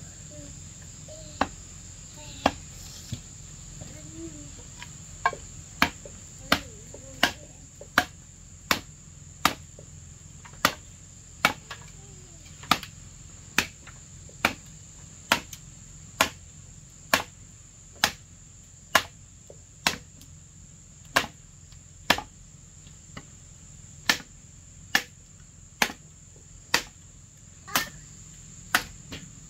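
Machete chopping into an upright wooden pole braced on a stone block: a few spaced sharp knocks at first, then a steady run of about three chops every two seconds, over a steady high insect buzz.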